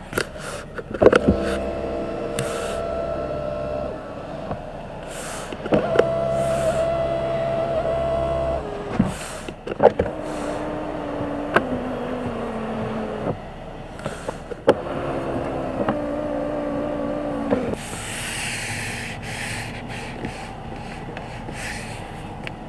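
Electric motors of a Genesis G90's rear-door power window and sunshade running in four separate runs of about three seconds each, each starting and stopping with a click. Near the end comes a short soft rubbing.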